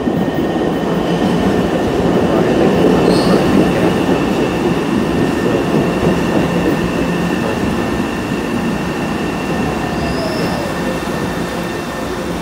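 New MBTA Orange Line subway train pulling into the station and slowing to a stop: a loud rumble of steel wheels on rail with a steady high whine over it. It is loudest a few seconds in, then eases as the train slows, with a whine falling in pitch about ten seconds in.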